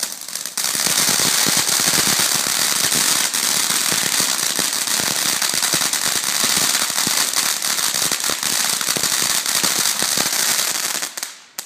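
Helios Fantasy Island ground firework fountain burning: a steady hiss of sparks thick with fast crackling. It gets louder about half a second in and dies out near the end.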